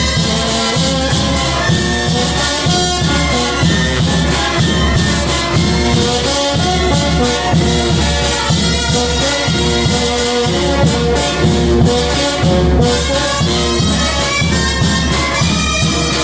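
Brass band playing, featuring a euphonium, with held notes over a steady low beat.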